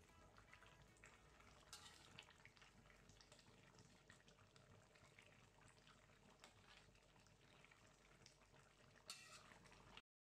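Faint bubbling of turmeric chicken gravy simmering in a wok, with scattered small pops and a metal ladle stirring through it. There is a louder clack about nine seconds in, and the sound cuts off suddenly near the end.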